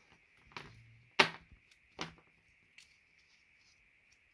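Handling noise: a few sharp clicks and knocks as cables and their ties are handled, the loudest about a second in, over a faint steady high hum.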